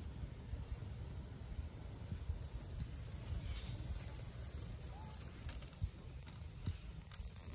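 A steady low outdoor rumble with a few short rustles and snaps near the end, as a baby monkey grabs and pulls at leafy plant stems.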